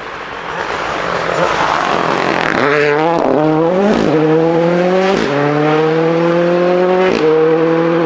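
Ford Fiesta Rally2 car's turbocharged three-cylinder engine at full throttle on loose gravel. First comes a growing hiss of tyres and stones, then from about two and a half seconds in the engine note climbs through the gears. There are four quick upshifts, each with a drop in pitch and a sharp crack.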